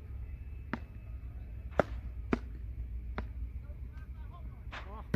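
Beach tennis paddles striking the ball during a rally: four sharp pops in about two and a half seconds, then a fainter one. A low wind rumble runs underneath, and a brief voice comes near the end.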